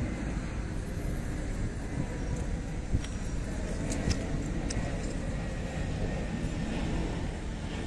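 Steady low rumble of distant road traffic mixed with wind on the microphone, with a few faint ticks about three to four and a half seconds in.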